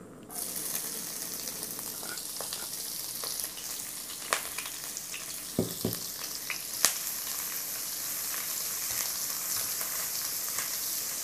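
Dried anchovies sizzling in hot cooking oil in a wok, the sizzle starting abruptly as they hit the oil. A few sharp clicks and knocks sound about halfway through, and a spatula stirs the anchovies near the end.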